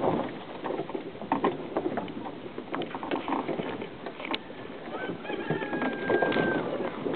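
Vehicle cabin on a rough road: irregular knocks and rattles of the body over bumps above steady road noise. Near the end a thin high squeak or whistle holds for about a second and a half.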